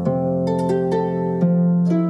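Solo harp playing: plucked notes ringing into one another, with a new low note coming in about two-thirds of the way through.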